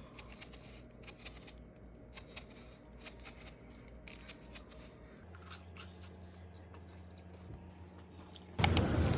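A series of short, crisp snipping or crunching sounds, mostly in pairs about once a second, stopping about halfway through, then a few faint clicks. Near the end a much louder sound with a clear pitch starts abruptly.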